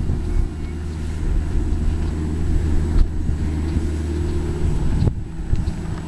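Excavator's engine running steadily under load, with wind on the microphone and a couple of brief clicks.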